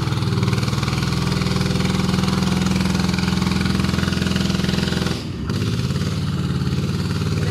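Small inboard engine of a motorized outrigger fishing boat running steadily at low speed, with a brief dip in loudness about five seconds in.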